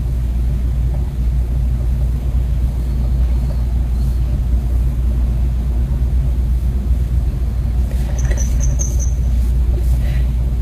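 Steady low rumble of a running machine, even and unbroken, with a brief high squeak about eight seconds in.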